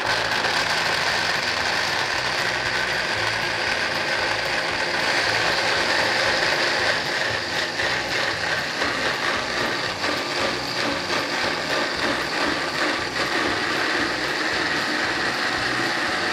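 Countertop blender motor running steadily at speed, grinding raw carrots, blanched almonds and dates in milk into a smooth puree.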